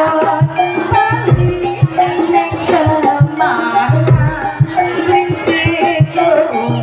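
Jaranan accompaniment music: rapid hand-drum (kendang) strokes under a wavering melody line, with a deep stroke about every three seconds.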